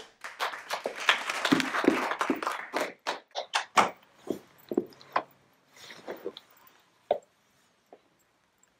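A child's footsteps and clothing rustle on a hard floor, then a run of separate light knocks and taps that thin out, as the child reaches a wooden chair and sits.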